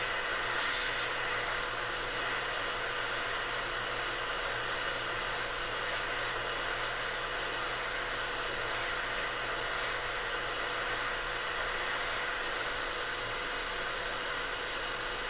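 Hot air rework station nozzle blowing hot air onto an iPhone XR logic board, heating the A12 CPU's solder so the chip can be lifted: an even, steady airy hiss with a faint constant tone under it.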